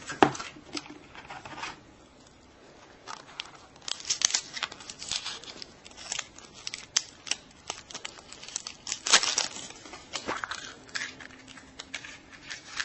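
A plastic surprise egg being unsealed and opened by hand: the plastic seal tearing, plastic clicks and small candy packets crinkling, in irregular rustles and clicks with a brief lull about two seconds in.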